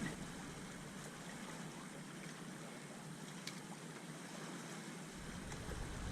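Steady wash of water outdoors, with wind rumbling on the microphone from about five seconds in.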